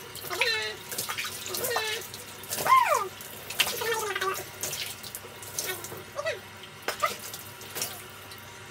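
Water splashing and pouring as a toddler's hair is wetted and washed by hand. The toddler makes several short, high-pitched wordless vocal sounds, the loudest a rising-and-falling squeal a little under three seconds in.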